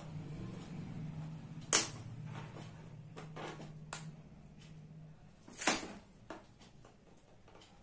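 Plastic locking clips of an LED TV's back cover snapping loose as the cover is pried off its edge: two sharp snaps, about two seconds and about six seconds in, with a lighter click between and a few faint clicks. A low steady hum lies under the first five seconds.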